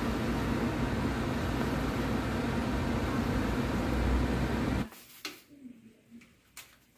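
A steady hum and hiss of background noise, like a running fan or air-conditioning unit. About five seconds in it drops away to near quiet, with a few light clicks and knocks.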